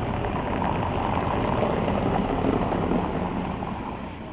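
Volvo V90 estate driving past on stone paving, heard mostly as a rushing tyre noise that swells as the car approaches and fades as it goes by.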